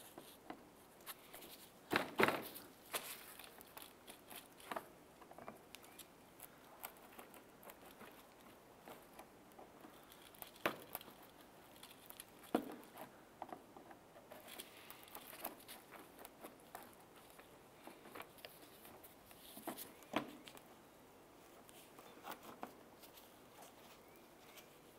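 A trim tool prying plastic push-pin retainers out of a plastic inner fender liner, and gloved hands working them loose: scattered faint clicks, scrapes and creaks of plastic, the loudest about two seconds in.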